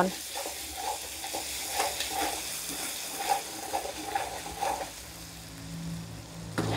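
Metal spatula scraping and stirring around a wok of sizzling sugar and pounded aromatics in irregular strokes, as the sugar is caramelised until it darkens for a braising sauce.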